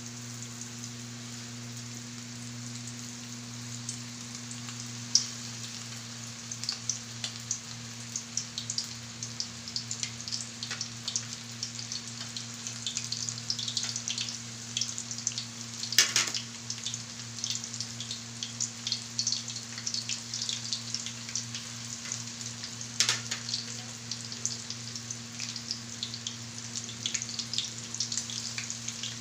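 Flour-coated chicken roulade pieces deep-frying in hot oil in a pan: a dense crackling and popping that grows busier after the first few seconds as more pieces go into the oil. A steady low hum runs underneath, and there are two sharp clicks in the second half.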